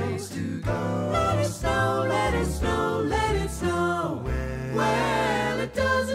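A song playing: singing voices over bass-heavy backing music.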